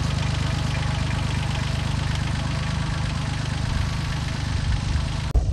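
Small Kubota tractor's engine running steadily as it pulls a roller dibbler along the row, with an even rhythmic pulse. The sound cuts off abruptly near the end.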